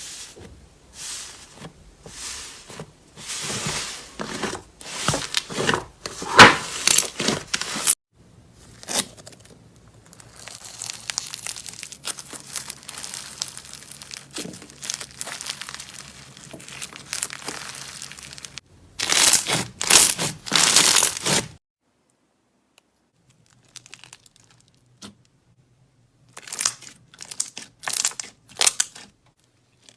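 Slime being squeezed, pressed and stretched by hand, giving dense irregular crackles and pops. It comes as several short stretches with abrupt breaks between them, and the last stretch is quieter and sparser.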